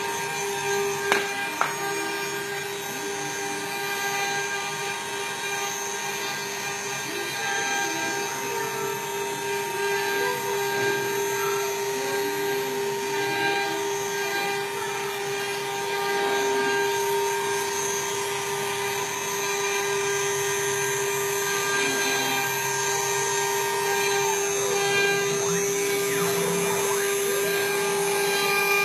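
Multi-spindle CNC wood-carving router running, its spindle motors giving a steady whine made of several held tones. Two sharp clicks about a second and a half in.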